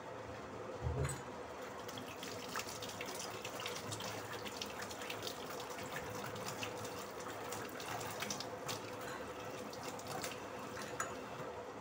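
Water running from a kitchen tap, with scattered small clicks and a low thump about a second in; a faint steady hum underneath.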